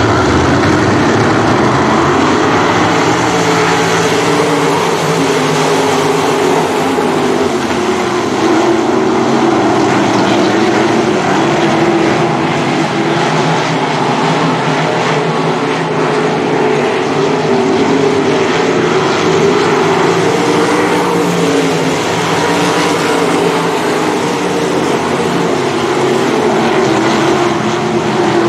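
A pack of 305 sprint cars racing, their V8 engines running hard together. Several engine pitches overlap and keep rising and falling.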